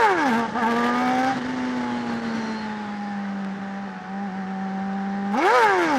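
Honda CBR600RR's inline-four engine revs up sharply and drops back right at the start, holds a steady, slowly sagging note while cruising, then revs up and falls back again near the end. Wind rushes over the helmet microphone throughout.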